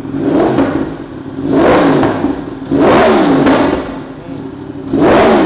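Yamaha R1M's crossplane (CP4) inline-four with an Akrapovič exhaust, revved from idle in four blips, each rising and falling in pitch, the last starting near the end.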